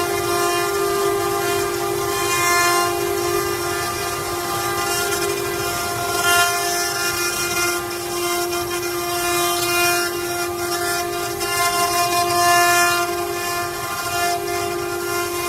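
CNC router spindle running with a steady high whine, a constant hiss above it and small swells in level as it works.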